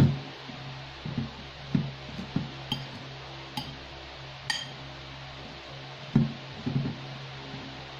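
Metal fork mixing tuna and crushed crackers in a ceramic bowl: irregular dull knocks, with a few ringing clinks where the fork strikes the bowl's side.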